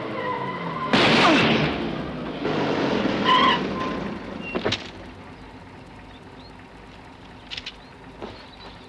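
Car engine dropping in pitch as it slows, with a loud rush of noise about a second in and a sharp click a few seconds later. The engine then fades away to a quiet background.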